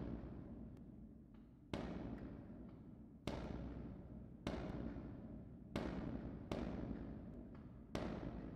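Firecrackers going off: six sharp bangs at uneven intervals of one to one and a half seconds, each followed by a long fading rumble.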